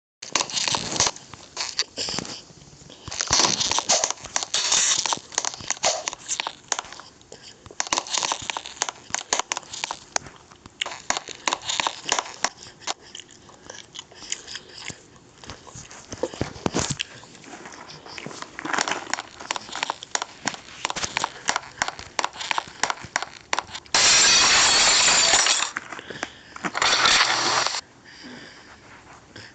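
Irregular clattering and clinking of hard objects being handled, with two loud bursts of rushing noise near the end.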